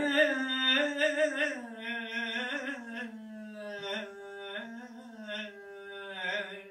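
A single voice chanting unaccompanied in Mevlevi Sufi devotional style, with quick ornamental warbles in the first couple of seconds, then long held notes that sink slowly in pitch, breaking off near the end.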